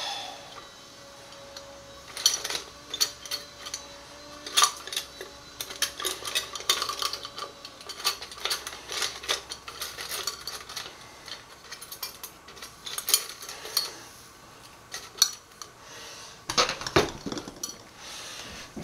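Irregular clinks, taps and knocks of utensils and containers being handled, with a few sharper knocks standing out.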